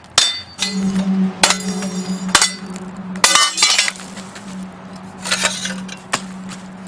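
Metal parts of a sump pump being banged apart to free a solid brass piece: sharp clanks that ring, about seven irregular strikes with a quick cluster near the middle. A steady low hum runs beneath.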